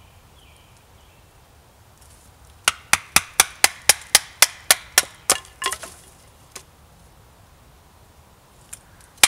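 A wooden baton striking the spine of a belt knife to split a thin stick, in a quick run of sharp knocks, about four a second, for nearly three seconds. A few more strikes come near the end.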